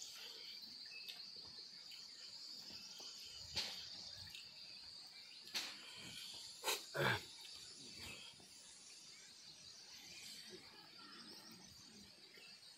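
Faint, steady high-pitched chirring of field insects, with a few short clicks and smacks of eating by hand, the loudest a pair about seven seconds in.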